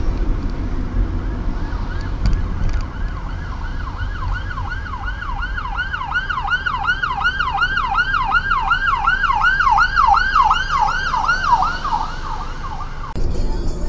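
Police car siren in yelp mode: fast rising-and-falling wails, about three or four a second, growing louder and then stopping about a second before the end. It is heard from inside a car over a steady low rumble.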